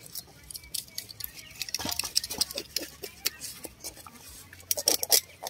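Metal scissors snipping through a snake's body in a metal pan, with small clicks and clinks of the blades against the pan, and a quick run of louder clicks near the end.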